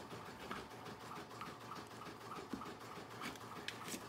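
Faint sound of a rotary cutter rolling along a ruler, slicing through vinyl and stabilizer on a cutting mat, with a few light clicks near the end. A faint steady ticking, about four a second, underlies it.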